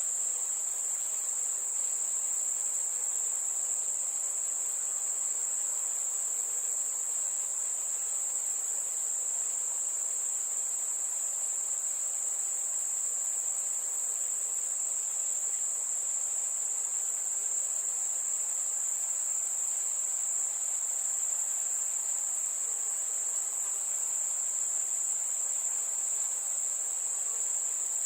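Crickets trilling: a steady, unbroken high-pitched chorus over a faint background hiss.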